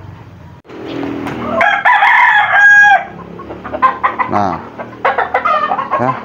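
A rooster crows once, loud and held for about a second and a half. It is followed by a run of short clucks and calls.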